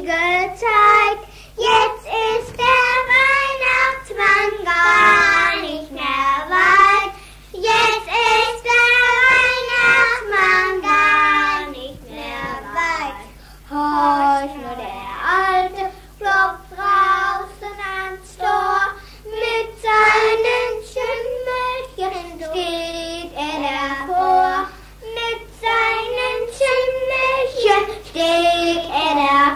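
A child singing a German Christmas song unaccompanied, long wavering notes with short breaks, from an early home cassette recording made on a Philips EL 3300 recorder, with a steady low hum underneath.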